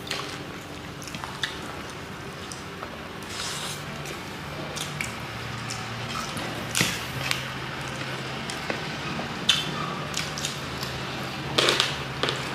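Close-up eating sounds: wet chewing and lip smacks as saucy chicken lollipops are bitten and chewed off the bone, with scattered short clicks and a louder cluster of smacks near the end.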